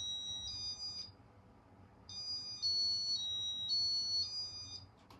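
Electronic beep tones from a Casablanca ceiling fan's control, signalling Home Safe mode being exited: a short run of high beeps at the start, then, after about a second's pause, a longer tune of high beeps stepping up and down in pitch.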